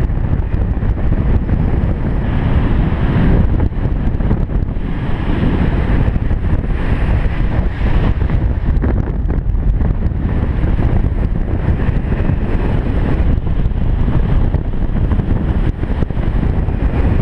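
Loud, steady rush of wind buffeting the microphone from the airflow of a paraglider in flight.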